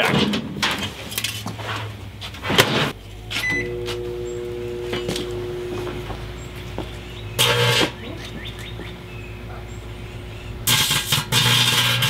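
Microwave oven door shutting and keypad beeps, then the oven running with a steady hum. A small scrap of aluminium foil inside arcs, giving a loud crackling burst about seven seconds in and a longer one near the end.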